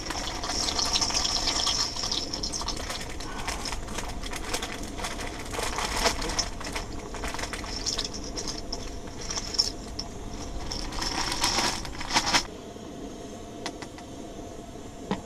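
Pot of pasta water boiling on a small camp stove: a steady bubbling hiss with scattered clicks and rustles from handling at the pot. The hiss cuts off suddenly about twelve seconds in.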